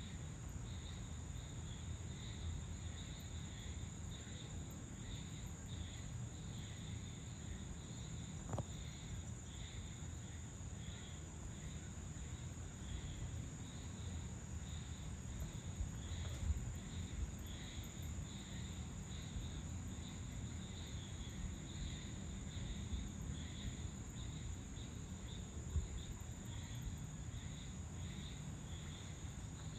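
Crickets and other insects calling: a steady high-pitched trill with a chirp repeating about once a second, over a low background rumble.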